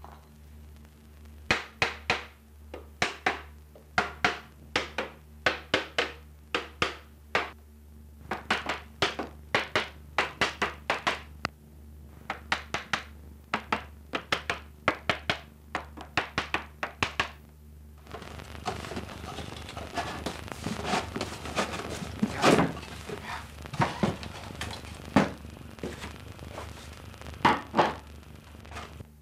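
A small hammer tapping on wood in a quick, irregular run of sharp knocks, about two or three a second. About two-thirds of the way in the steady tapping stops, and a hiss rises under fewer, scattered knocks.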